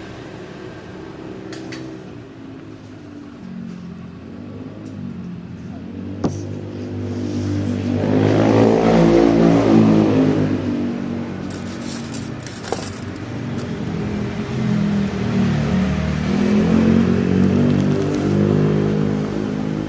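Motor vehicles passing close by, their engines swelling and fading with gliding pitch, loudest about halfway through and again near the end.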